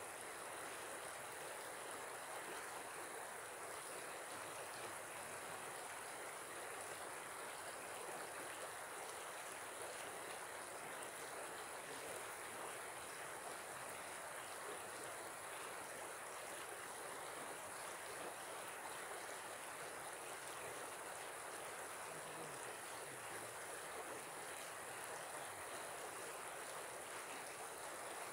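Shallow river flowing: a steady, even sound of running water.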